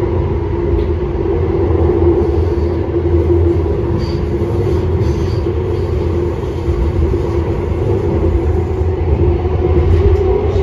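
Heard from inside a LYNX Blue Line light rail car running at speed: a steady rumble of wheels on rail under a steady humming whine.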